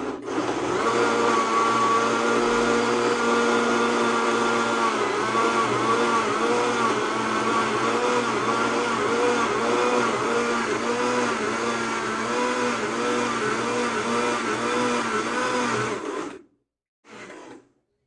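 Countertop blender running, blending a thick milkshake mix of berries, milk, ice cream and cookies until smooth. About five seconds in, its motor tone starts to waver up and down again and again as the load shifts. It stops abruptly near the end, and one short burst follows a moment later.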